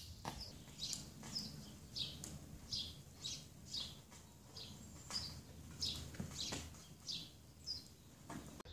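A bird calling over and over, short high chirps that each sweep down in pitch, roughly every half second, over a faint low steady rumble.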